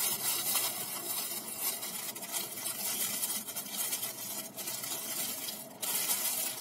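Thin plastic bag crinkling and rustling as hands open it and work a wrapped bread roll out, with a few sharper crackles.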